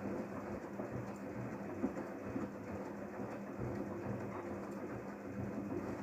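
Daewoo DWD-FT1013 front-loading washing machine turning its empty drum on a 95 °C drum-cleaning wash, with soapy water sloshing over a steady motor hum.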